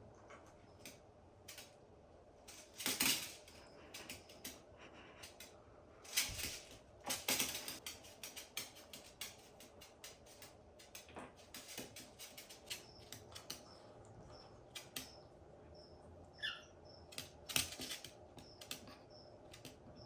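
Scattered light taps, clicks and a few short clatters, like parrot beaks and claws on a small plastic toy bowling set and tabletop. A few brief high chirps come about three-quarters of the way through.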